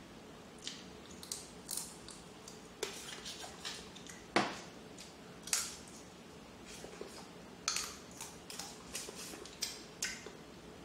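Close-up eating sounds: irregular clicks, crackles and smacks as crab legs are picked apart by hand and the meat is chewed, with one sharper crack about four and a half seconds in.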